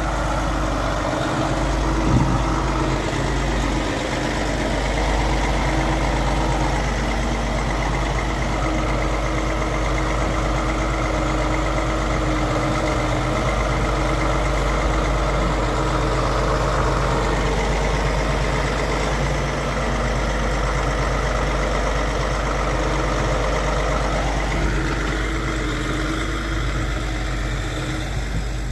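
Kenworth log truck's diesel engine running steadily at close range, with one brief knock about two seconds in.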